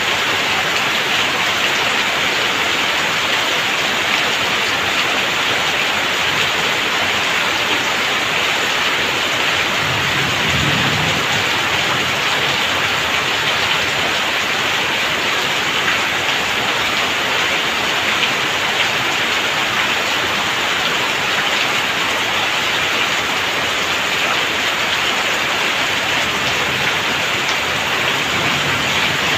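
Heavy rain falling steadily, water streaming off a tiled roof edge and splashing onto wet ground. A brief low rumble comes about ten seconds in.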